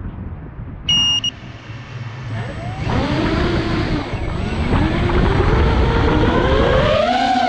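Electric motor and propeller of a radio-controlled Spitfire model plane whining in flight, the pitch wandering up and down with the throttle and climbing near the end. A short electronic beep about a second in, and wind on the microphone before the motor builds.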